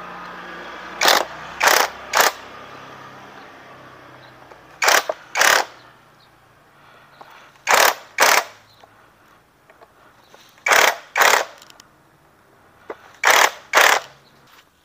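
Hammer striking a hand impact driver (obeng ketok) to drive home the crankcase screws of a Yamaha Crypton engine: eleven sharp metal knocks in groups of two or three, a group every two to three seconds. A power driver's motor whirs faintly during the first few seconds.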